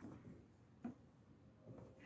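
One faint click a little under a second in, from fingers handling the headlight bulb's plastic wiring connector and retaining clip at the back of a Peugeot 308 headlamp; otherwise near silence.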